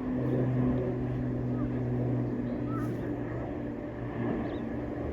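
A steady low engine drone with an even hum. A couple of faint short chirps come through about one and a half and three seconds in.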